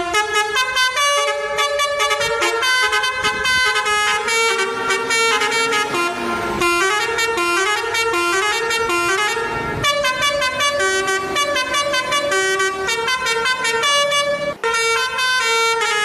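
Bus 'telolet' horn, a multi-tone musical air horn, playing a fast melody of quickly stepping notes, with a couple of brief breaks.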